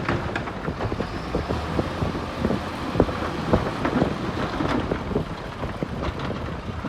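Bulldozer working, its engine and running gear giving a dense, steady rumble, broken by many irregular knocks and clanks. Wind noise on the microphone.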